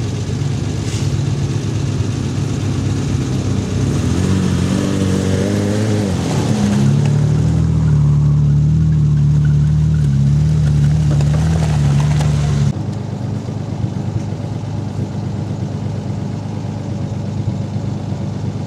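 Off-road 4x4's engine revving under load in mud: the pitch climbs, is held high for several seconds, then drops off sharply to a lower running sound about thirteen seconds in.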